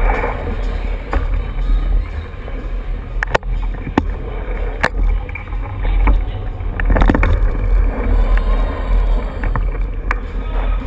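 Ride noise from a camera mounted on a bicycle going fast over a hard indoor floor: a steady deep rumble, with several sharp knocks where the bike and mount jolt.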